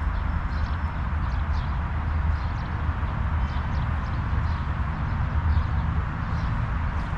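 Wind rumbling steadily on the microphone, with small birds giving short, high chirps again and again over it.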